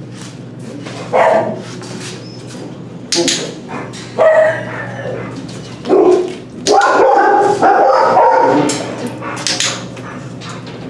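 Shelter dogs barking in their kennel runs: separate barks every second or two, with a longer run of barking about seven seconds in.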